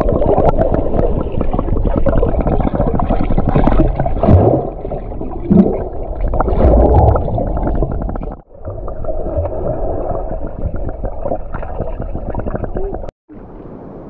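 Underwater sound heard through a submerged camera as a swimmer dives: muffled rumbling and gurgling bubbles with a steady crackle. It breaks off briefly about two-thirds of the way through and again near the end.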